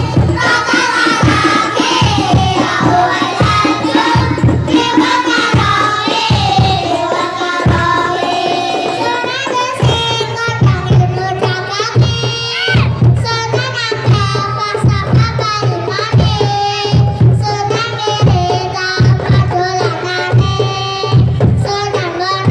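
Children singing together, accompanied by rebana frame drums beaten in a steady rhythm.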